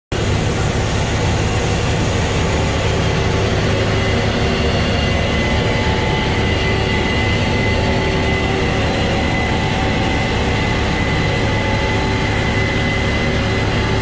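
Harvest machinery running steadily alongside a Case IH 8250 combine: a continuous low drone with a constant high whine over it.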